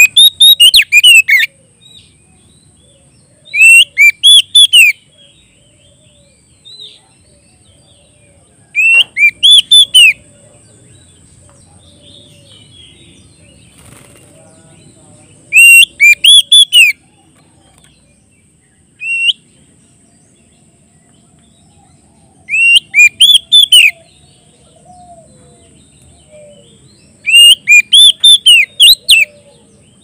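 Oriental magpie-robin singing a loud challenge song: six bursts of rapid, rising-and-falling whistled notes, each about a second long, spaced five to six seconds apart.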